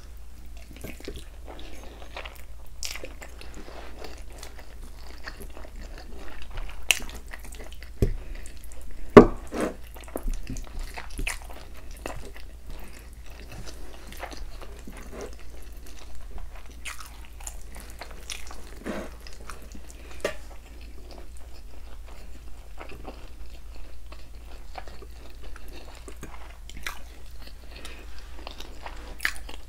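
Close-miked mouth sounds of someone eating rice and palm butter by hand: irregular wet chewing, smacking and small clicks, with one sharper knock about nine seconds in.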